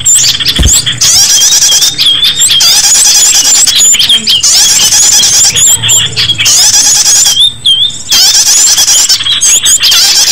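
Small-bird lure call recording (suara pikat) playing loud: dense, shrill chirping and trilling from small birds in runs of a second or two, broken by short pauses. It is the kind of call played to draw small birds in for catching.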